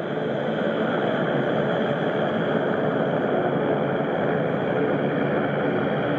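Jet engines of a Boeing 767 airliner on short final with its gear down, a steady engine noise at approach power.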